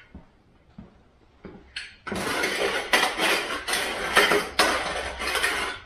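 A few light metal knocks, then from about two seconds in, repeated scraping strokes of metal on metal, about two or three a second: the rough cut edges of an exhaust pipe being cleaned up.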